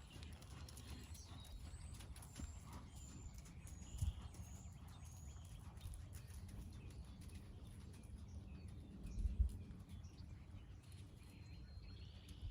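Faint hoofbeats of a horse being ridden through a western dressage test, over a steady low rumble. Two louder low thumps come about four seconds and nine seconds in.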